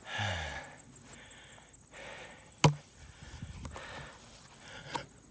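A single sharp slap about two and a half seconds in, a flying disc smacking into a hand as it is caught, with a smaller tap near the end. A brief rush of noise comes at the start, and a steady high insect trill runs underneath.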